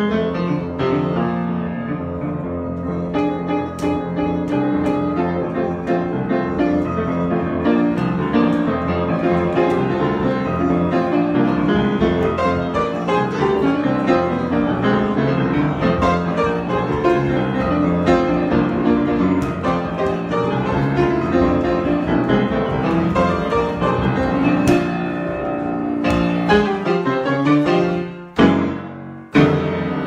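Solo grand piano improvisation, played dense and busy with many notes at once. Near the end the playing breaks off briefly between two loud struck chords.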